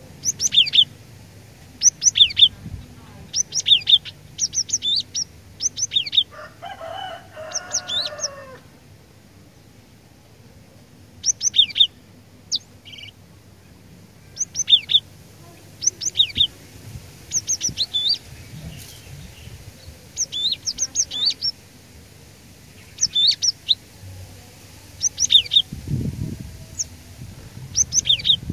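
Cinereous tit (glatik batu) singing hard: quick groups of sharp, high whistled notes repeated over and over, with short pauses between phrases. About seven seconds in there is a lower, harsher call lasting about two seconds, and near the end two dull low thumps.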